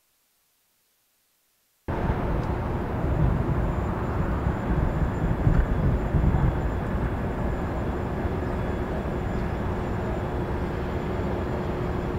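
Near silence, then about two seconds in a sudden cut to street ambience: a steady low rumble of traffic noise.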